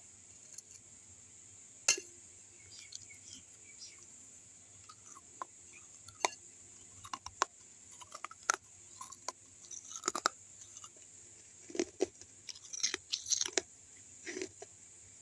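Someone biting and chewing pieces of baked clay kulhad, with sharp irregular crunches: one loud crunch about two seconds in, then denser bursts of crunching in the second half.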